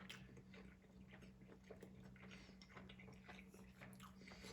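A person chewing food close to the microphone: faint, irregular small clicks and smacks, over a steady low electrical hum.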